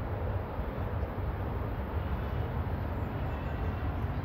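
Faint chirps from a flock of small aviary birds over a steady low rumble.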